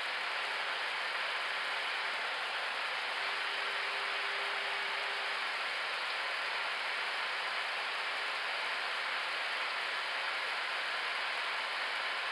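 Steady rushing hiss of air and cabin noise on an Airbus A321neo flight deck in the climb, with a faint low hum that grows a little louder for a couple of seconds about three seconds in.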